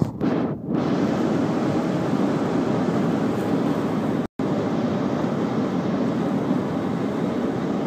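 Steady road and wind noise of a car driving at highway speed, heard from inside the cabin. It drops out completely for an instant a little past four seconds in.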